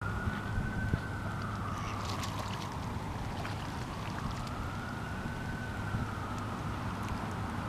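An emergency-vehicle siren wailing, its pitch slowly rising and falling about every four seconds, over a steady low hum.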